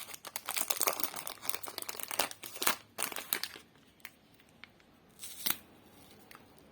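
Plastic lollipop wrapper crinkling and crackling as it is handled and pulled open, dense for the first half, then dying down to a few single crackles with one louder rustle about two thirds in.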